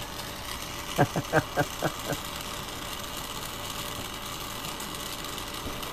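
Steady rushing hiss of a Carlisle CC glassworking torch's flame, over a low steady machine hum. About a second in, a few short mumbled vocal sounds.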